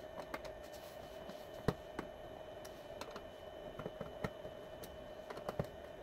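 Phillips screwdriver turning the small screws out of a slim DVD drive's sheet-metal case: scattered light clicks and ticks of the tip in the screw heads and against the metal, the sharpest about a second and a half in, over a faint steady hum.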